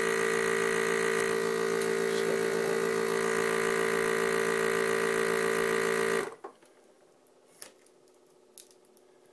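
FoodSaver vacuum sealer's pump running with a steady hum as it sucks the air out of a bag. The pump cuts off suddenly about six seconds in, once the vacuum is drawn, leaving a few faint clicks.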